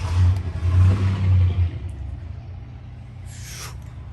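A low engine rumble that swells for about the first two seconds and then fades, followed by a short burst of hiss about three seconds in.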